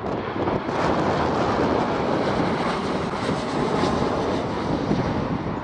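Boeing 737-800's CFM56-7B turbofan engines running at approach power as the jet passes low overhead on final approach: a loud, steady rushing jet noise.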